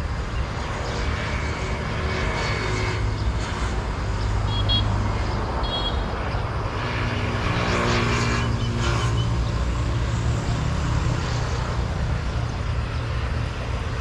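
A steady low engine rumble, with two short high chirps near the middle.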